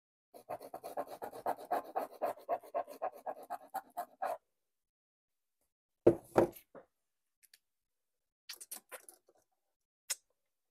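Dog panting fast, about six breaths a second, for about four seconds. Two loud knocks follow about six seconds in, then faint rustling.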